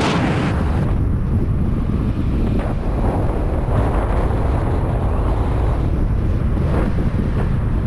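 A moving car's low, steady road and engine rumble, with wind buffeting the microphone.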